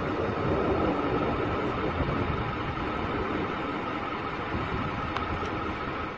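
Steady rumble and hiss from inside a vehicle in a rainstorm, with the engine, rain and wind blending into one unbroken noise.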